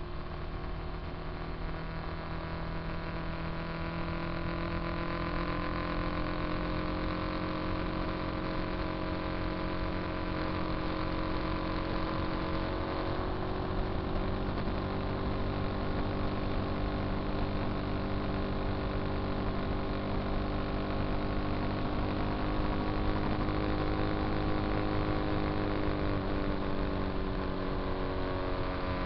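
Motorcycle engine running steadily while riding on the highway, its pitch drifting slowly up and down, over a steady rush of wind. It picks up a little speed and gets louder about four seconds in.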